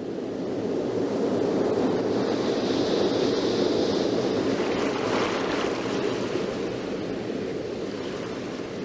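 Steady rushing water noise like surf, swelling up over the first second and then holding, with a brighter hiss for a while in the middle.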